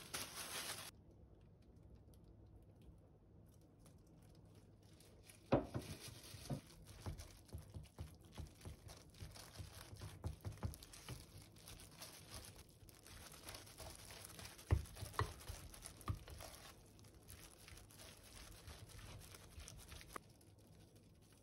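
Plastic-gloved hands crinkle as they crumble laver flakes into a glass bowl. Then a wooden spoon and a gloved hand stir rice mixed with tuna and mayonnaise, making soft irregular knocks and scrapes against the glass bowl for most of the rest.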